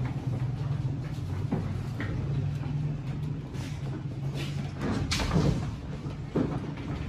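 A steady low machine hum with several knocks and clatters over it, the loudest about five seconds in.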